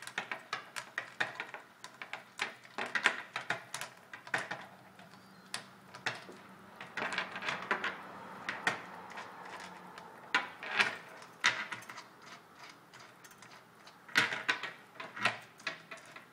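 Metal corner fixings of a wall clock's acrylic face panel being unscrewed by hand: clusters of small clicks, taps and scrapes, with a few seconds of denser rubbing near the middle.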